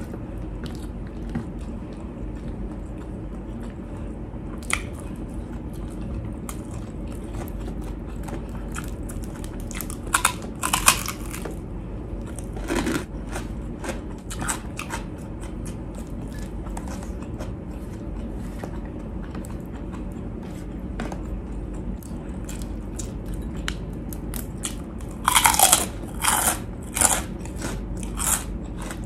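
Close-miked eating: steady chewing broken by sharp crunches of fried pork rind (chicharon), loudest in a cluster about ten seconds in and another near the end, over a steady low background hum.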